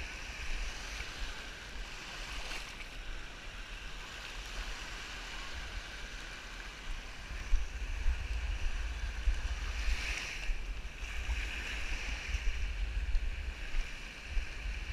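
Wind buffeting the camera's microphone in a gusty low rumble, over the steady wash of small waves lapping at the shoreline.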